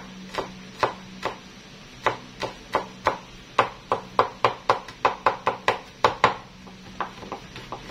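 Chef's knife chopping garlic on a wooden cutting board: sharp knocks of the blade on the board, a few scattered at first, then quickening to about three a second before stopping a little over a second before the end.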